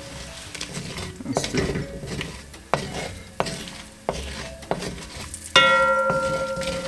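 A spoon stirring sticky curry powder and sugar in a hot pan, knocking and scraping against it a handful of times over a faint sizzle. Near the end a sharp metallic clang rings out and fades over about a second.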